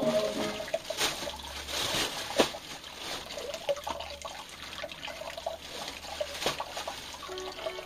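Wet fish being handled in a stone sink: water trickling and dribbling, with a few sharp knocks of fish against the sink, the loudest about two and a half seconds in.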